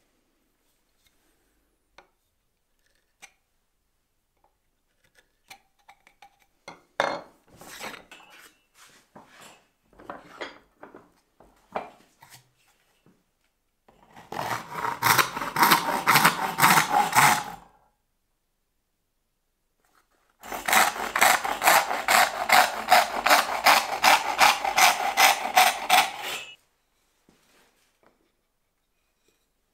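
Hand saw cutting through a wooden board in two spells of brisk, even back-and-forth strokes, about three to four a second. Before that come scattered light taps and scrapes of hand-tool work on wood.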